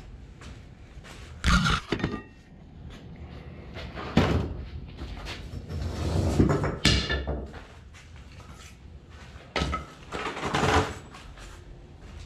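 A series of knocks and thuds from tools and materials being handled, in about five separate groups, the loudest about a second and a half in and about four seconds in, with shorter clatters around seven and ten seconds.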